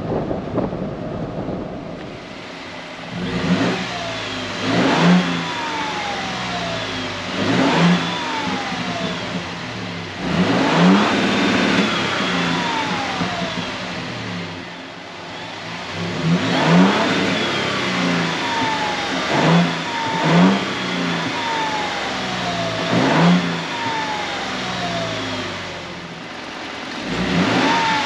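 2022 Toyota Tundra TRD Pro's twin-turbo V6, fitted with aFe GT Momentum cold air intakes, free-revved about nine times while parked. Each blip rises and falls and is followed by a falling turbo whistle, with the intakes adding an audible rush of air. It opens with a second or two of driving noise with the windows down.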